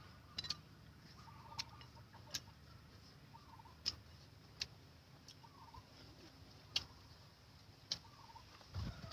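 Sparse sharp clicks at irregular intervals, about eight in all, with faint short bird calls between them over a low background hum.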